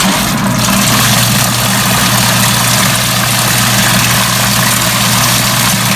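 Kuppet mini portable washing machine running its pulsator wash cycle in a water-filled tub: a steady electric motor hum with an even wash of churning noise over it.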